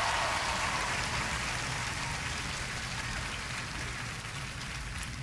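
Studio audience applauding, the sound slowly dying away.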